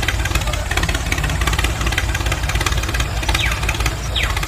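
Engine idling: a steady, rapid chugging, with a couple of short falling whistle-like sweeps near the end.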